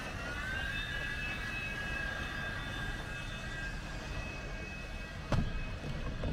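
City street traffic rumble with a steady high-pitched whine from a vehicle, rising slightly in the first second and then holding, and one sharp click about five seconds in.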